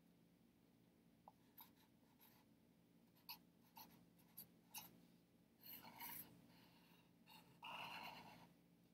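Faint scratching of a pen writing on paper held on a clipboard: a few short strokes from about three seconds in, then a longer stroke near the end.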